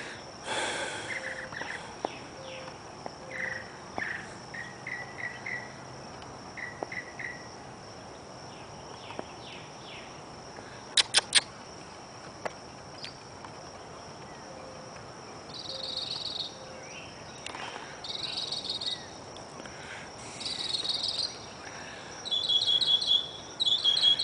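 Predawn outdoor ambience: a steady high insect trill runs underneath while birds give short chirps and trills. Three sharp chirps come close together about 11 seconds in, and faster, louder pulsed chirping builds near the end.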